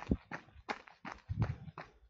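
A runner's footsteps, landing in a quick, even rhythm of about three steps a second.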